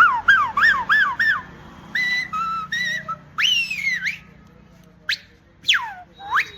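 A man whistling imitations of emergency-vehicle sirens for an ambulance, fire engine and police car. It starts with four quick falling whistles, then a steady two-tone hi-lo alternation, then a rising and falling wail, and near the end sharp swooping falls and rises.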